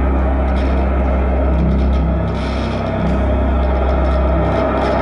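Live experimental trio of electric guitar, alto saxophone and drums playing loud, dense, droning music: sustained low tones that shift pitch a few times under a continuous noisy wash.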